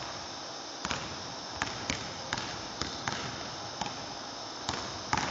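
Basketball being dribbled on a hardwood gym floor, about ten bounces at an uneven pace over a steady background hiss.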